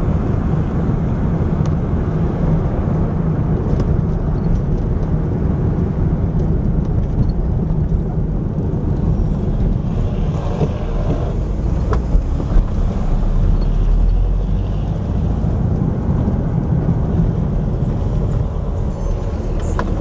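Car driving along a city street, heard from inside the cabin: a steady low rumble of engine and road noise, with a couple of light knocks about twelve seconds in.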